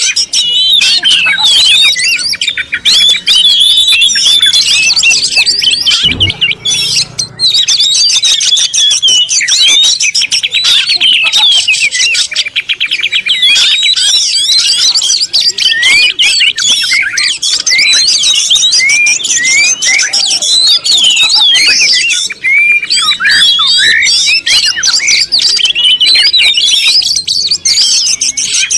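A dense chorus of many small birds calling at once, a continuous tangle of high chirps with no pause. A brief low thump comes about six seconds in.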